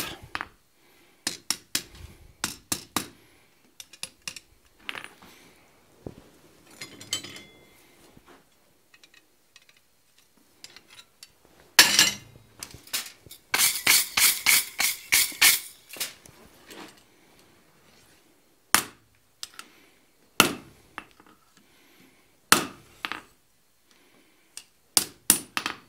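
Hand hammer tapping hot steel on an anvil: light straightening blows, each with a short metallic ring. The blows come in scattered groups, with a quick run of about ten a little past halfway.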